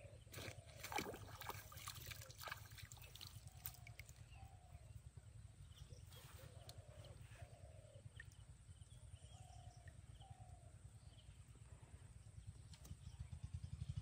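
Quiet pondside ambience: an animal calling faintly in pairs of short hoots, a pair every two to three seconds, over a steady low rumble. A few light clicks in the first couple of seconds.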